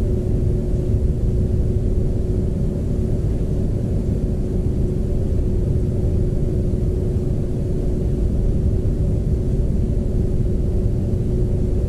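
A steady low rumble with a constant hum running through it, unchanging throughout.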